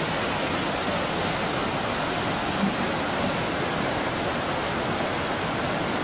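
Water rushing and churning over rocks in a stone channel at the foot of a wooden water wheel: a steady, even rush.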